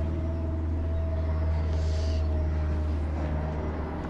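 A steady low mechanical drone with a faint held tone above it, like a distant engine running.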